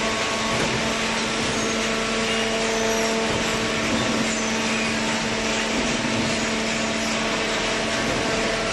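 Hydraulic baling machine running: a steady machine hum with constant mechanical noise.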